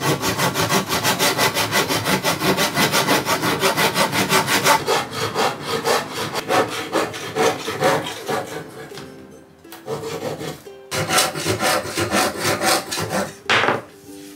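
Fine-toothed hand saw cutting through a round hardwood chair leg: rapid, even back-and-forth strokes for about five seconds, then slower strokes broken by short pauses, with a last hard stroke near the end as the cut nears completion.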